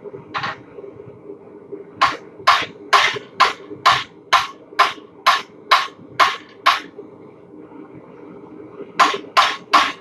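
Hand hammer striking hot steel on an anvil in steady blows, about two a second: a single blow, then a run of about a dozen, a pause, and another run starting near the end. A steady low hum runs underneath.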